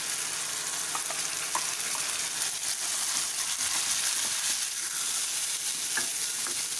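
Freshly poured tomato, ginger and garlic paste sizzling in hot oil with fried onions in a kadhai, a steady hiss, while a wooden spatula stirs it with a few light taps and scrapes.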